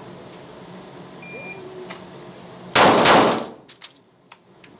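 A range-timer beep, then about a second and a half later a Taurus G3C 9mm pistol fires two quick shots, a double tap about a third of a second apart, with a short echo after them. A few small clicks follow.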